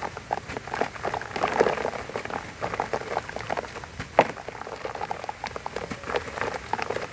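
Black sand-and-cement heart shapes crumbling in foamy water: a dense run of small wet crackles and crunches, with one louder crack about four seconds in.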